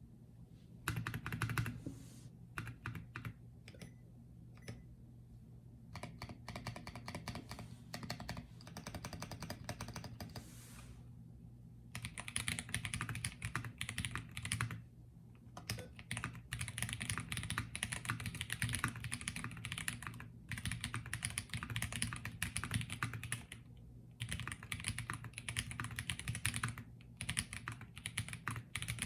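Typing on a Vega65 mechanical keyboard with Invyr Holy Panda tactile switches in an aluminum plate and PBT keycaps. The keystrokes are slow and scattered at first, then come as fast, near-continuous runs broken by short pauses, over a faint steady low hum.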